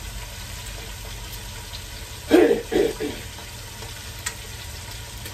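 Fish frying in oil in a pot on a propane camp stove, a steady sizzle. About two seconds in, a short two-part vocal sound, like a brief hoot from a person.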